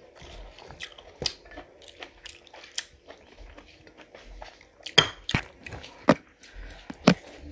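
Close-miked eating sounds of people eating rice and curry by hand: chewing and lip smacks, with a few louder sharp smacks in the second half.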